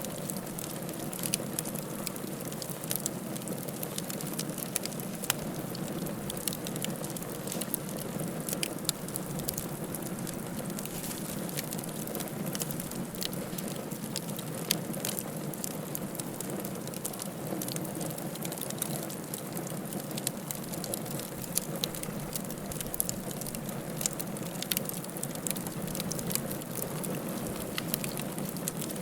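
Wood fire crackling in a fireplace: a steady low hiss and rumble of burning, with frequent small irregular pops and snaps.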